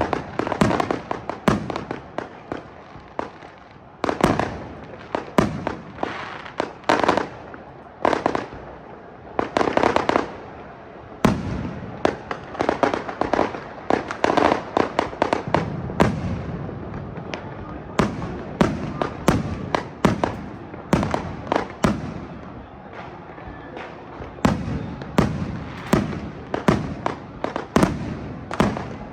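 Loud fireworks and firecrackers going off without pause: many sharp bangs and cracks, often in rapid runs, with crackling between them.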